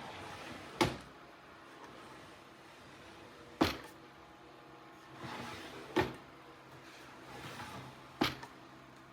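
Under-desk keyboard tray sliding on its runners and knocking to a stop, four times about two to three seconds apart, some knocks with a brief sliding sound just before.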